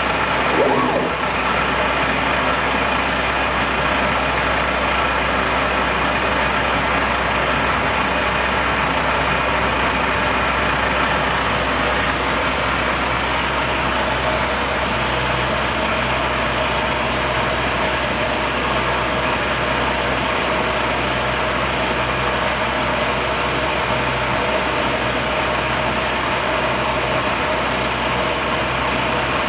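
Universal CNC milling machine running, a steady mechanical hum with several high steady whining tones. There is a short louder sound about a second in, and a low tone joins about halfway through.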